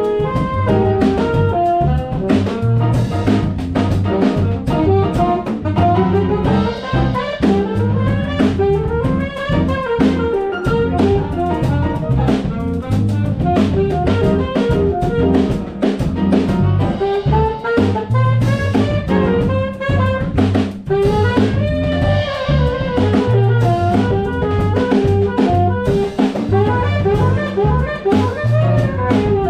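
Live jazz: a saxophone plays a running melodic line over upright piano chords and a drum kit keeping time.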